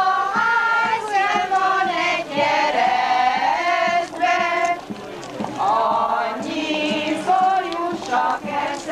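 A group of women's voices singing together, with long held notes that slide from one pitch to the next.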